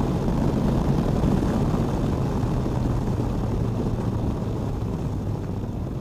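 Can-Am Spyder F3's three-cylinder engine running at a steady cruise under way, with wind and road noise, picked up by a helmet-mounted microphone.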